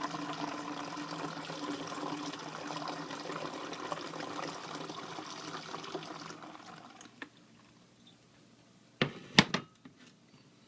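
Liquid pouring from a bottle into a container, a steady pour that tails off about seven seconds in. Near the end come two or three sharp knocks.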